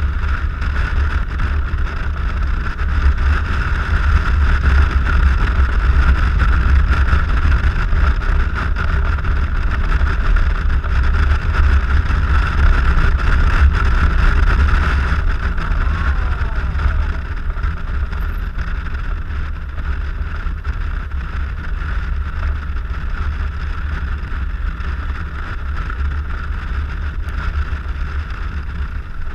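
Steady wind and road noise of a Suzuki Burgman 650 maxi-scooter ridden at speed, with a deep wind rumble on the microphone and the engine's drone underneath. It eases a little about halfway through.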